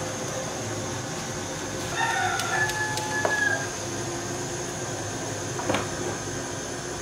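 A rooster crowing once, about two seconds in: a held, pitched call lasting about a second and a half that drops at the end. It sits over a steady background noise, and there is a single sharp knock near the end.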